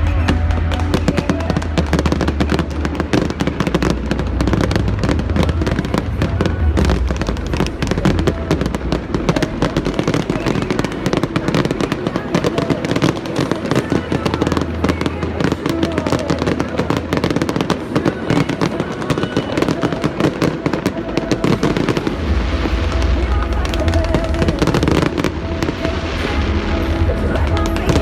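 Fireworks going off in a dense, rapid run of bangs and crackles, with music playing underneath.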